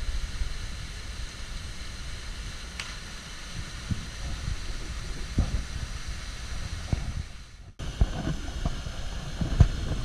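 Steady rushing of a small waterfall into its pool, with wind buffeting the microphone in low rumbles. The sound cuts out for a moment about three quarters of the way through.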